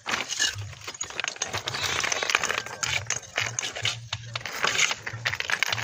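Steel trowel scraping and spreading cement mortar on top of stone cladding: a continuous run of scrapes with many small clicks.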